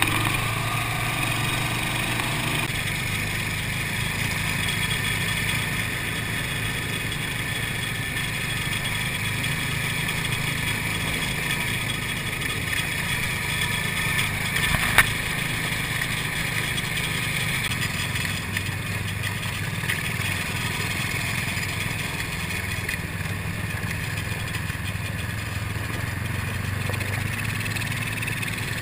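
TaoTao Coolster 125 ATV's small single-cylinder four-stroke engine running at a steady speed while riding along a dirt track, with one sharp knock about halfway through.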